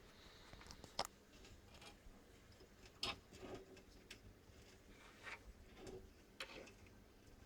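Faint, scattered light clicks and taps, about half a dozen over several seconds, in a quiet room.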